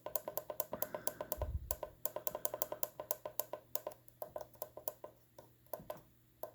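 Soldering iron's temperature-up button pressed over and over, each press a short click-beep, about six a second with a few brief pauses, as the iron is set to its maximum temperature.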